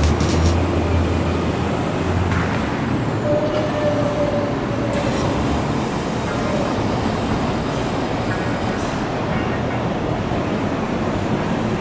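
Komatsu container top lifter's diesel engine running under load as it hoists a shipping container off a freight wagon. The low engine hum drops away a couple of seconds in, and a brief whine comes about three seconds in.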